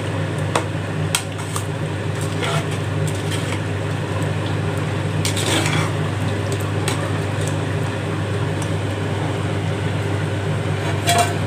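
A long metal ladle stirring chicken and gravy in a large aluminium pot, scraping and clinking against the pot's sides at irregular moments, over a steady low hum. The clinks thin out in the last few seconds.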